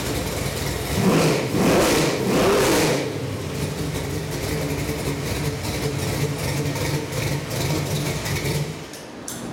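Chevy 383 stroker small-block V8 on an engine run stand, revved three times in quick succession about a second in, then settling back to a steady idle; near the end the engine shuts off.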